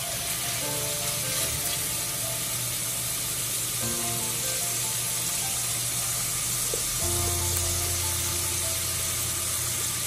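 Onions, tomatoes and bell peppers sizzling steadily in hot oil in a stainless steel pot, under background music whose held notes change every few seconds.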